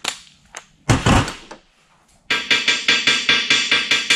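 Cordless impact wrench on the 17 mm nuts: a short burst about a second in, then hammering steadily for about two seconds from just past the middle.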